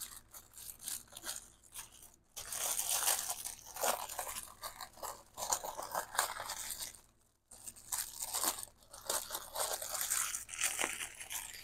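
Clear plastic die-storage envelopes crinkling as they are handled and packed, in two long stretches with a brief pause about halfway.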